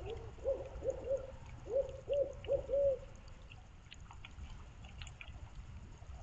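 Barred owl hooting: a rhythmic run of about seven low hoots, a short group and then a louder one, ending about three seconds in. A faint trickle of water and scattered drips run underneath.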